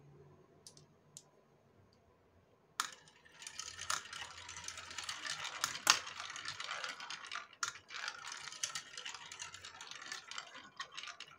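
Balls rolling and clattering down a plastic building-block marble run. A dense rattle starts about three seconds in, with sharp clacks scattered through it, the loudest around the middle.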